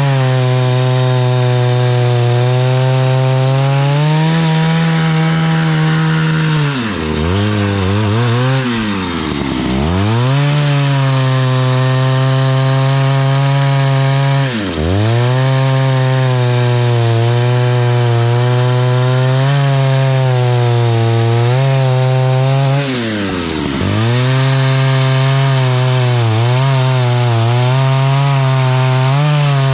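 Vintage Stihl 051 89cc two-stroke chainsaw running at high revs while cutting birch. The revs drop sharply and climb back three times: twice in quick succession early on, once briefly midway, and again later.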